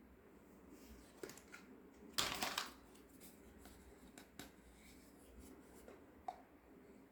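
Small toy kitchen pieces being handled: a few light clicks and one brief rustling scrape about two seconds in.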